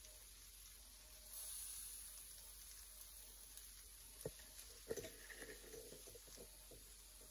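Near silence: room tone, with a brief faint hiss after about a second and a few soft clicks and knocks in the second half.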